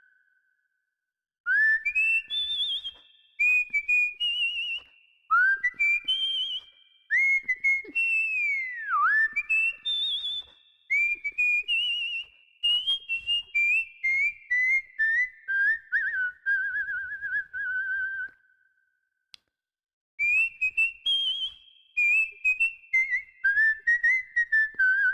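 A whistled tune: phrases of clear, high whistled notes with trills and slides, broken by short silent gaps, the longest a little under a minute's third in, around the twentieth second.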